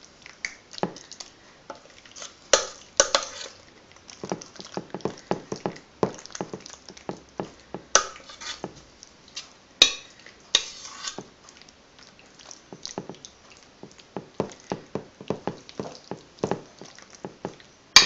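A metal utensil scraping and tapping against a pot and a glass baking dish as thick pasta in tuna sauce is scooped out and spread. There are many small clicks, with a few louder clinks now and then.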